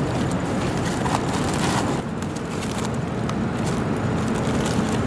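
Steady low background rumble with scattered faint clicks.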